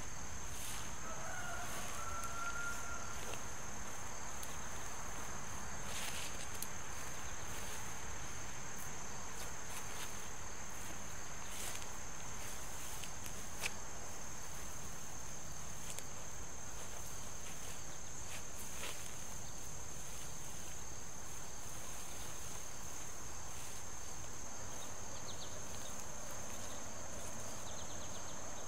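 A steady, high-pitched chorus of insects chirping, typical of crickets, with a few scattered soft clicks and rustles from wire fencing being handled.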